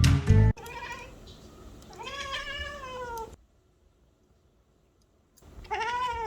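A Siamese cat meowing three times: a short faint meow, then a long meow that rises and falls, and after a pause another meow near the end.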